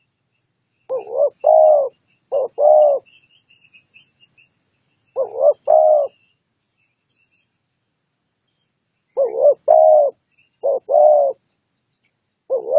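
Spotted dove (tekukur) cooing: groups of low, rounded coos, each phrase of two or three notes, coming in three bouts with pauses of a few seconds between, in the call style called 'tarik akar'. Faint high chirps of small birds sound behind the first bouts.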